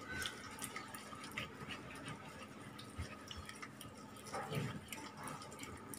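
Faint wet squishing and small ticks of a hand stirring thick rice-and-lentil batter round a steel bowl, with a slightly louder stroke about four and a half seconds in.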